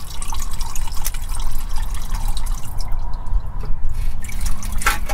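Automatic transmission fluid dripping and trickling from the edge of a loosened transmission pan into a plastic bucket, in quick irregular drips. This is the pan being lowered to drain the fluid.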